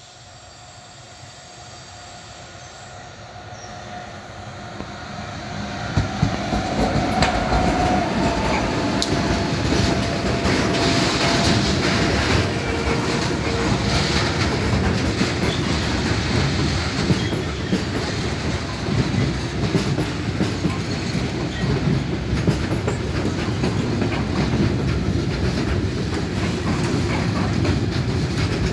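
Freight train of loaded log wagons hauled by a class 2016 diesel-electric locomotive, passing close by. It grows loud about six seconds in, then the wagons' wheels clatter steadily over the rail joints.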